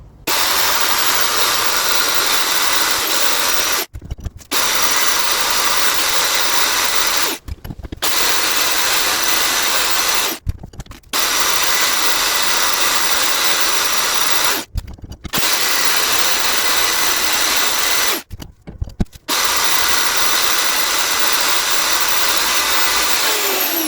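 Power tool with a rotary wire brush scouring a freshly cast copper ingot to clean off the oxide, running in six stretches of a few seconds with short breaks between, and a quick falling whine as it stops near the end.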